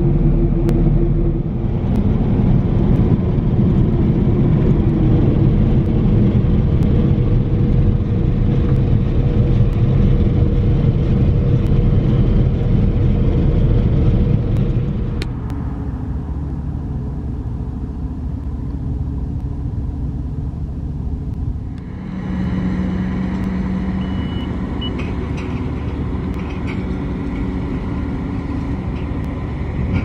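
Claas Lexion combine harvester engines running. A loud, close, dense rumble fills about the first half, then drops suddenly to quieter running. About three-quarters of the way through, a steady low engine hum comes in.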